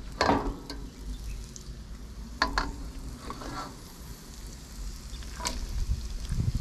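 Food sizzling in a hot wok, with a few brief sharp knocks of a cooking utensil against the pan as it is stirred.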